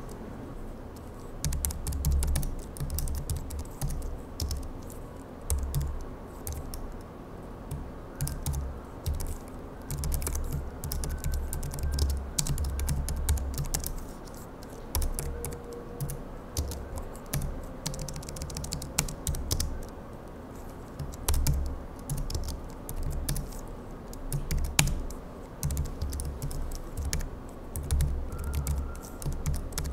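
Fast touch-typing on a low-profile computer keyboard: quick runs of light key clicks broken by short pauses.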